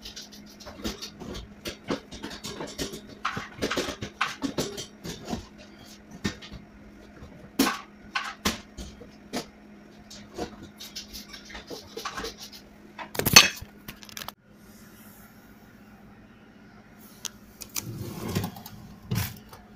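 Plastic hand brush and dustpan sweeping up onion skins, with brushing scrapes, clicks and knocks against a wire cabinet rack, and one loud clatter about 13 seconds in. A quieter rustle follows near the end.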